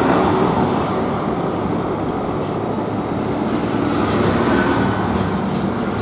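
Steady background din with a low rumble, like passing traffic or running machinery, and a few faint light ticks.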